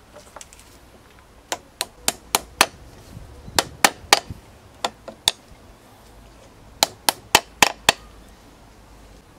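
A small hammer tapping, sharp taps in quick runs of three to five with short pauses between.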